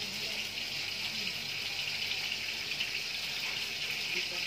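Hot oil sizzling steadily in a pan as tilapia fries, an even hiss with no pauses.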